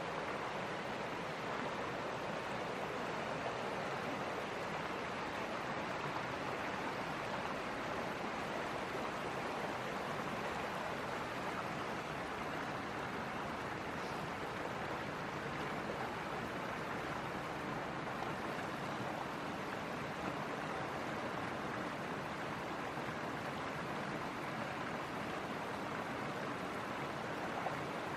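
Mountain creek water rushing steadily over rocks: an even, unbroken water noise.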